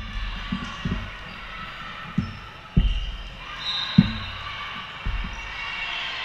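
Volleyballs bouncing on a hardwood gym floor: about six dull thuds at uneven intervals, the loudest near three and four seconds in, over the indistinct chatter of a busy sports hall.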